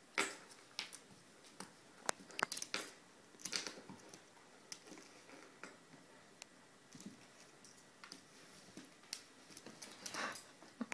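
Faint scattered clicks, taps and scuffles of a puppy and a large dog playing over a plush toy on a hardwood floor: claws tapping on the wood and the dogs mouthing at the toy and each other. The louder scuffles come just after the start and again near the end.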